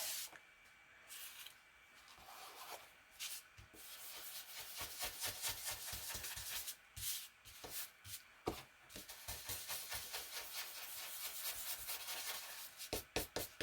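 Hands rubbing paper down against a page: a faint, scratchy rubbing in quick, irregular strokes. It is sparse at first and becomes steady from about four seconds in.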